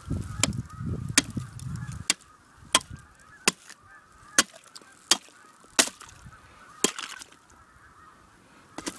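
Ice spud chopping into the ice around a set trap: a series of sharp strikes, about one every 0.7 seconds, stopping about seven seconds in.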